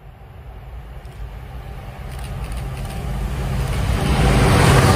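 Class 66 diesel-electric freight locomotive approaching with a container train, its diesel engine running with a steady low drone that grows steadily louder, the noise of wheels on rail building up with it and peaking as it draws level near the end.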